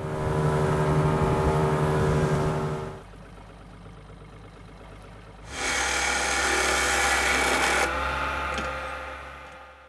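An engine runs steadily for about three seconds. After a quieter stretch, a small wood lathe spins a cork fishing-rod grip while a hand-held cutting tool scrapes against it. The scraping is loud and fades out near the end.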